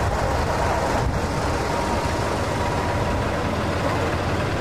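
Tractor engine running steadily at low speed, a constant low rumble, as it tows a heavy parade float.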